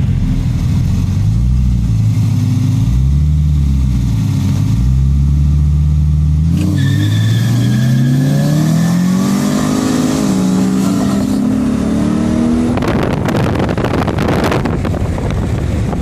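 Performance car engine running, its note rising and falling for the first six seconds, then climbing steadily for about six seconds as the car accelerates hard, ending in a rush of noise near the end.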